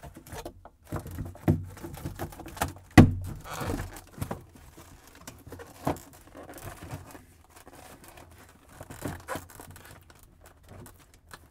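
Plastic refrigerator evaporator cover being handled and pushed into place: irregular knocks and clicks of plastic with rustling and scraping between them, the loudest knock about three seconds in.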